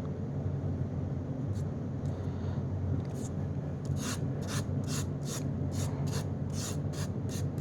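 Dry rubbing and scraping strokes, a few faint ones and then about two a second through the second half, as the collected carpet fibres and debris are scraped together and separated by hand. A steady low hum sits underneath.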